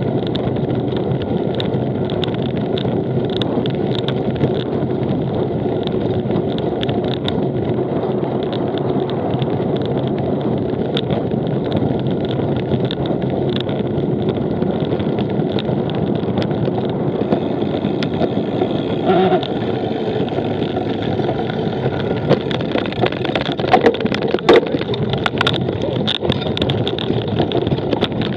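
Cyclocross bike ridden at race pace: a steady rush of wind and tyre noise with a constant light rattle, and a few sharper knocks in the last third.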